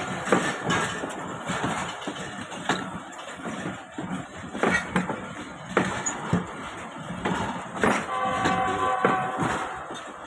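Passenger coaches of the Shalimar Express rolling past close by: a steady running rumble broken by irregular sharp clacks and knocks of the wheels on the track. A brief steady tone sounds about eight seconds in.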